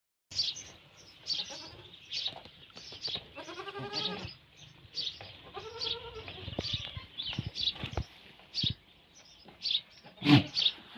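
Goat bleating twice, two quavering calls, over repeated high bird chirps. A sharp knock comes near the end.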